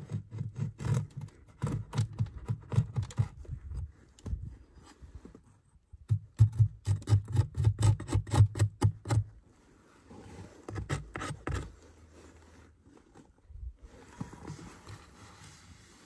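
Quick, repeated scraping strokes on a wooden Layens hive frame as dead bees and propolis are scraped off. They come in two runs of about four or five strokes a second, the second run louder, followed by a few weaker strokes later on.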